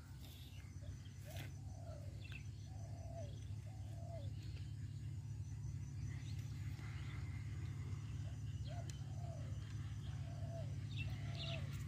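A bird calling in a run of short, low, repeated cooing notes, pausing, then a second run near the end, over a steady low rumble.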